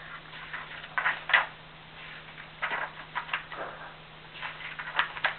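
A scattering of short, sharp clicks and scrapes, about eight of them, irregularly spaced over faint room hum.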